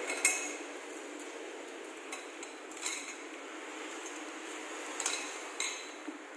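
Stainless-steel exhaust pipe clinking and knocking about four times as it is handled and unwrapped, the loudest knock just after the start.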